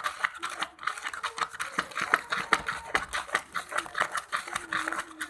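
Sticky slime mixture with magic sand being stirred in a container, making a rapid irregular run of wet clicks and crackles.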